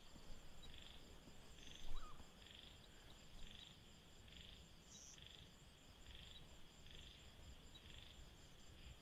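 Faint evening wildlife chorus of frogs and insects: a steady high insect trill with a soft call repeating a little more than once a second, and a short chirp about two seconds in.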